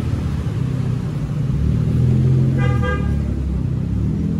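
Road traffic running steadily with engine rumble, and a vehicle horn giving a short toot about two and a half seconds in.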